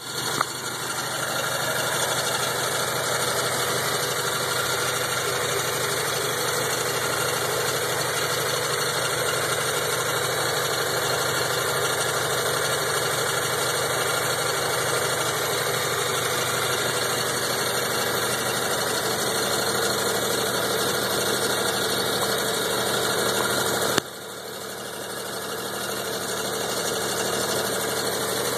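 A steady running machine noise, engine-like, with a sharp click near the end, after which the sound dips and slowly comes back up.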